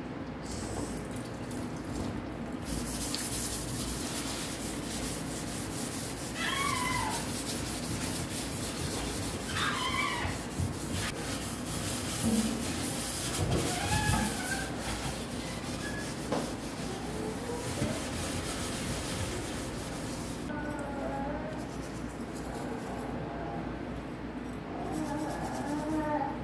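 Kitchen tap running into a stainless steel sink while the basin is scrubbed; the water stops about twenty seconds in and the scrubbing goes on. A small child's high squeals and babble come and go in the background.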